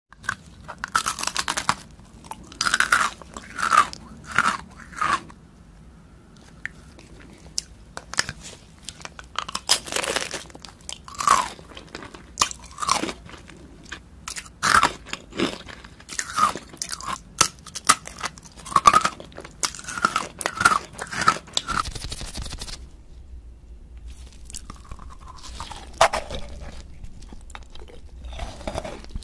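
Close-miked eating of sugar-coated rainbow jelly candy discs: repeated crunchy bites and chewing, the sugar crust crackling. About three-quarters of the way through, the crunching stops and gives way to quieter, softer chewing with an occasional bite.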